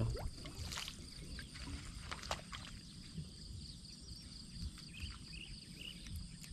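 Insects chirring steadily in a high pitch, with a low rumble and a few scattered light knocks.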